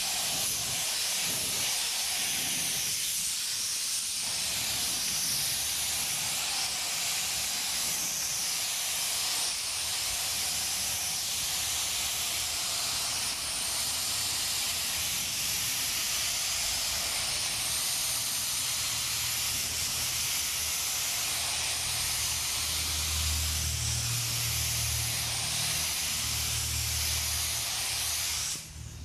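Astro Euro Pro HE gravity-feed paint spray gun spraying a coat of paint onto a car panel: a steady hiss of compressed air and atomised paint, broken briefly near the end when the trigger lets off. A low hum joins in for the last several seconds.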